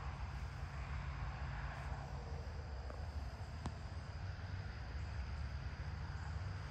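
Outdoor field ambience: crickets trilling faintly and steadily over a continuous low rumble, with one small click about three and a half seconds in.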